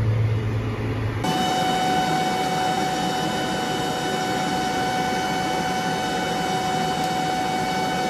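Low, steady tractor engine hum inside the cab for about a second, then an abrupt change to a steady machine whine with several unchanging tones beside the running John Deere air seeder and tractor.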